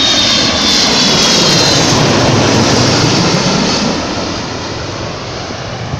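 Airbus A330-300 jet airliner passing low overhead on approach: loud jet engine noise with a high whine that slowly falls in pitch, fading over the last couple of seconds.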